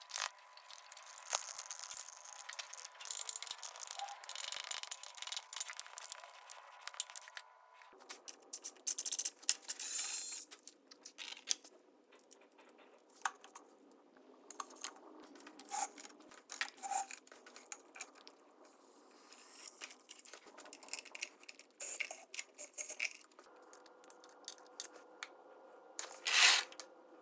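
Scraping and rubbing of objects being handled, with scattered clicks and rattles, and a louder burst of noise near the end.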